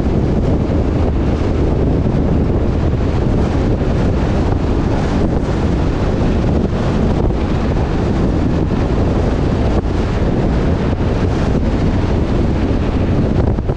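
Steady wind buffeting the microphone of a camera riding on a moving truck, with a constant low rumble underneath.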